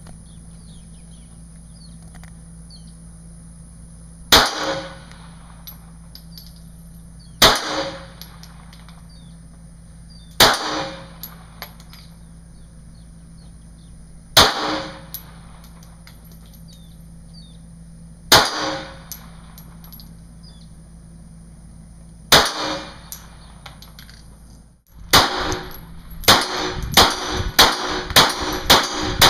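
Glock 25 pistol (.380 ACP) firing: six single shots spaced about three to four seconds apart, each trailing off briefly, then a fast string of shots at roughly two to three a second near the end.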